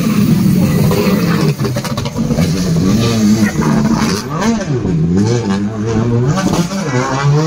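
Rally car engine revving hard, its pitch rising and dropping again and again with gear changes and throttle blips, with quick sharp rises and falls in the second half.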